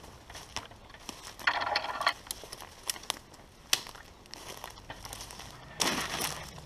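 Footsteps crunching through dry leaf litter and twigs on a woodland trail, uneven, with scattered sharp cracks and two longer, louder bursts of crackling about a second and a half in and near the end.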